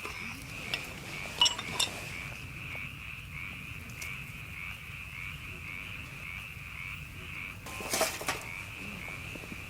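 A steady chorus of calling animals that pulses about twice a second, with a few light clinks of cookware or utensils near the start and a louder clink about eight seconds in.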